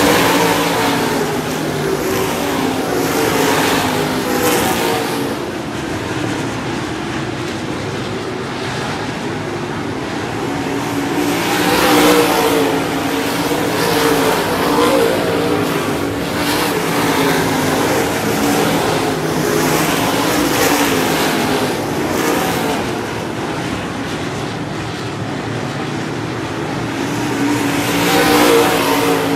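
A pack of dirt-track race cars running laps, their engines rising and falling as the field sweeps past. The sound is loudest about twelve seconds in and again near the end.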